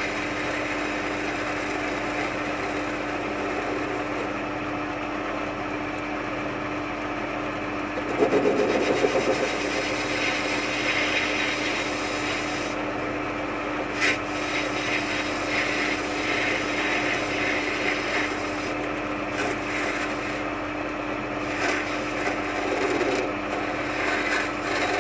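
Myford ML7R lathe running steadily with a hum while its tool faces down the centre boss of a gunmetal flywheel, the scraping cut coming and going. The cutting noise grows louder for a second or so about eight seconds in, and there is a single sharp click about fourteen seconds in.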